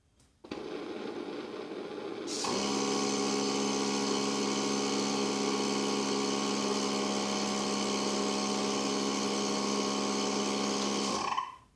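TBC demonstrator test rig running: cooling air and a steady hum start about half a second in, then a louder, fuller hiss with several steady hum tones comes in a couple of seconds later as the burner flames light under the turbine-blade specimens. It all cuts off suddenly near the end with a brief rising whistle as the cycle is stopped.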